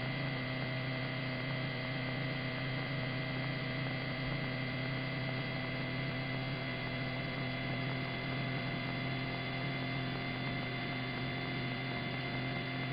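Steady electrical hum with several constant tones over a faint hiss, unchanging throughout: the open background of a helicopter's radio and intercom audio between transmissions.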